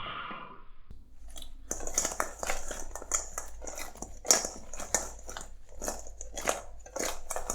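Sauce-coated chicken wings being tossed in a bowl of sticky gochujang sauce: a run of wet, smacking strokes, about two to three a second, starting about a second in.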